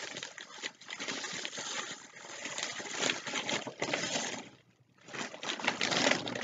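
Tissue paper rustling and crinkling as hands dig through it, with a brief pause a little after halfway.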